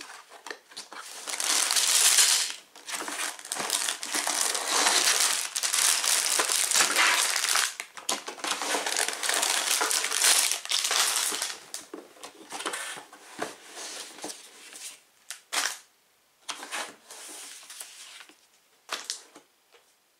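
Plastic Lego parts bags crinkling and rustling as they are handled and pulled out of the cardboard box. The crinkling is dense and continuous for the first ten seconds or so, then comes in shorter separate bursts that fade out near the end.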